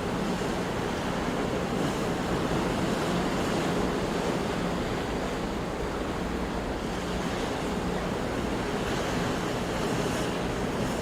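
Ocean surf washing in continuously, a steady wash of breaking waves that swells slightly now and then.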